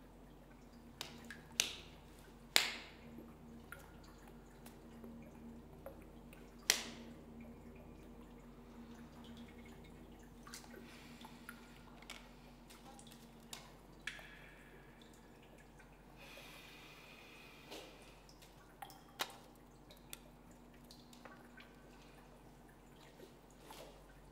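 Water dripping in a small echoing concrete room: scattered single drops, three of them much louder in the first seven seconds, over a steady low hum.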